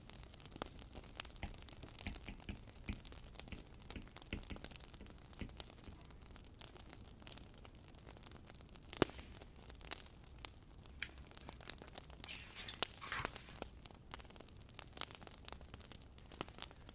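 Burning firewood crackling, with irregular small pops and snaps and one sharper pop about nine seconds in. A short rustle comes around twelve seconds in.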